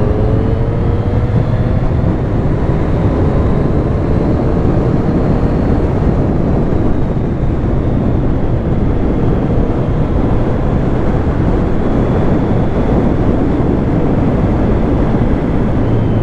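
Triumph Street Triple S 660 cc three-cylinder engine running on the move, its pitch rising a little in the first few seconds and then holding steady. Wind and road noise on the camera microphone run over it.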